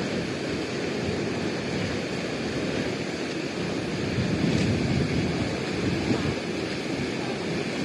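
Fast, foaming river water rushing and churning steadily, swelling a little about four seconds in.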